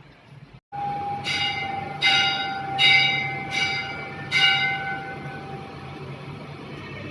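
Hindu temple bell rung by hand, struck five times about three-quarters of a second apart, over a steady ringing tone that fades out after about five seconds. It starts about a second in, after a brief dropout in the sound.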